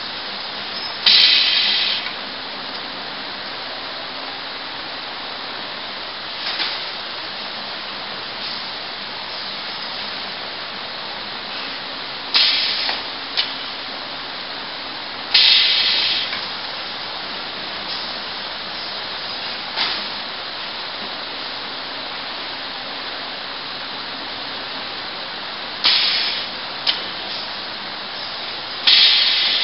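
Copper- and aluminium-tube resistance welding machine working in cycles: its pneumatic air cylinders let out short, sharp hisses of exhaust air, five loud ones and a few smaller puffs between, over a steady background hiss.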